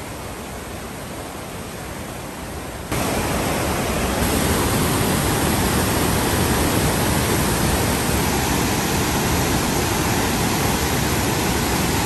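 Steady rush of white water pouring over a dam spillway and churning through river rapids, becoming much louder about three seconds in.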